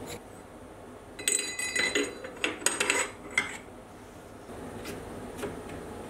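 Steel lathe parts (the arbor workpiece, the Morse taper collet and its drawbar) clinking against each other as they are handled and fitted. A flurry of light metallic clinks with a short ring begins about a second in and lasts about two seconds.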